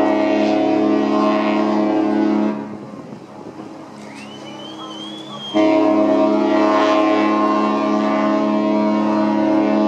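AIDAsol cruise ship's horn sounding long, steady blasts. It breaks off about two and a half seconds in and sounds again about three seconds later. A faint whistle is heard in the pause.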